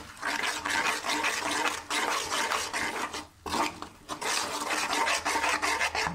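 Metal spoon scraping and stirring gram flour roasting in hot ghee in a steel kadhai, with a sizzle underneath; the stirring stops briefly twice. The besan is at the early frothy stage of roasting.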